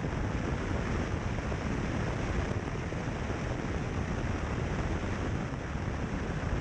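Steady rushing of wind on an exterior microphone, mixed with tyre and road noise from a car driving along a gravel road.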